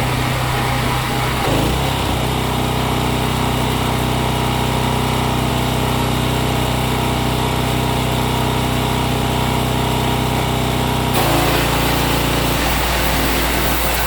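A motor running steadily, with a low hum, that changes abruptly about two seconds in and again near the end.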